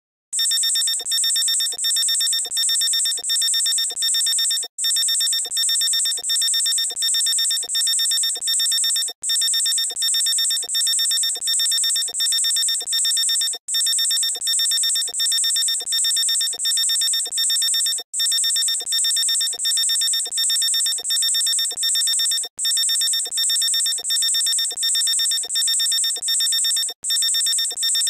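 Electronic beeping that repeats steadily, about two pulses a second, with a short break roughly every four and a half seconds.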